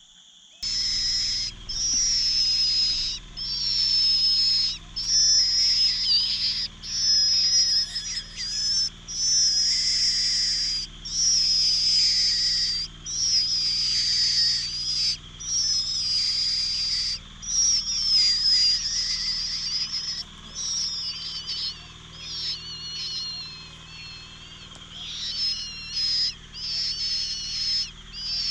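Cuckoo chick begging for food: high, shrill, wavering calls, each lasting a second or two, repeated almost without pause, becoming quieter and more broken in the last third.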